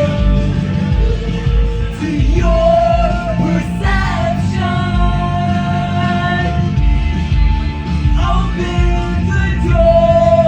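Loud music over a PA: a heavy bass beat under long, held melodic notes that change pitch every couple of seconds.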